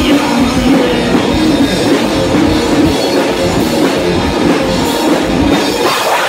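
Rock band playing live: distorted electric guitars over a full drum kit, loud and driving throughout.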